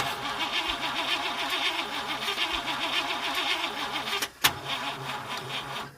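Car engine starting and running, with a wavering, pulsing tone under steady engine noise. It opens with a sharp click. About four and a half seconds in there is a brief drop and another click, then the engine runs on and cuts off just before the end.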